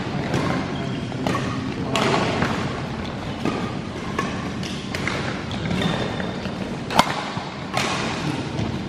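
Badminton rackets striking a shuttlecock during a doubles rally: sharp smacks every second or two, the loudest about seven seconds in.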